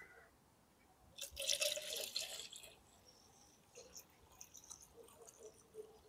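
Water running into a container for a little over a second, starting about a second in, as the foam concentrate is topped up to one litre; a few faint drips and splashes follow.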